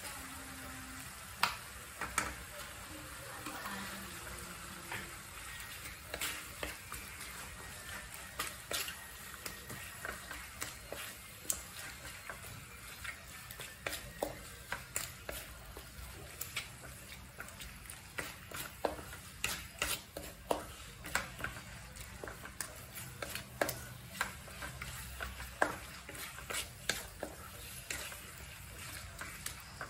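Wooden spatula scraping and knocking against a metal wok as a thick minced prahok ktiss mixture is stirred, with a soft frying sizzle underneath. The knocks and scrapes come irregularly, several in quick succession at times.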